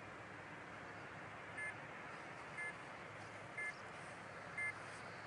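Short electronic beeps, each a two-note chirp, repeating once a second four times from about a second and a half in, over a steady background hiss.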